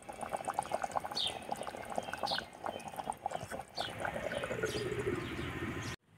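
Yakhni gravy bubbling in a clay pot, a dense crackle of small popping bubbles, with a tone sliding lower over the last two seconds.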